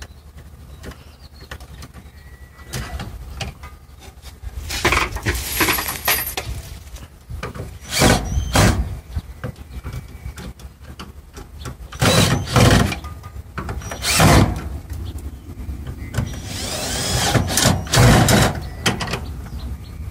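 Cordless drill-driver run in several short bursts, driving screws to fix an electrical socket box to the wall.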